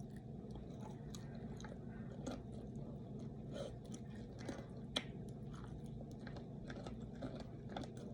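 A person chewing a mouthful of rice and vegetables close to the microphone, with scattered small clicks and soft crunches, over a faint steady low hum.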